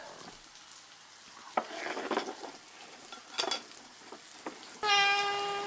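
A few light clinks of crockery over a faint sizzle from a hot pan, then near the end a cat meows once, a steady meow lasting about a second and louder than anything before it.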